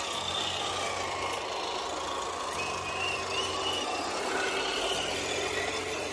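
Electric motor and gears of a radio-controlled crawler truck whining, the pitch shifting up and down with the throttle.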